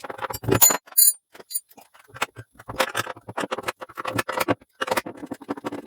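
Rapid clinks and clatter of small metal parts being handled, with a short metallic ring about half a second to a second in.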